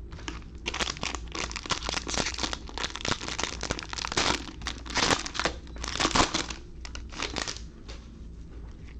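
Plastic wrapper of a 2020 Absolute Football fat pack of trading cards being torn open and crinkled by hand: a dense crackle that dies down about a second before the end.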